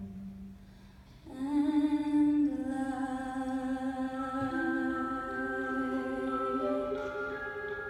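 Live wordless singing, like humming, over an orchestra: after a quiet first second, long held notes come in and step slowly upward, with a few pitches sounding together.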